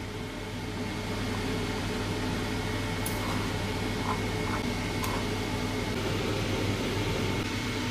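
Steady hum and whir of a running kitchen machine, with a low drone and a faint steady high tone, and two faint ticks partway through.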